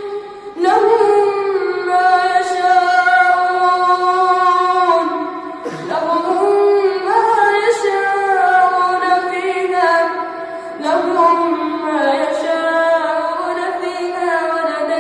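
A boy's voice reciting the Quran in the melodic tajwid style, high-pitched and ornamented, drawing out long wavering phrases. Short pauses for breath break it about half a second in, near six seconds and near eleven seconds.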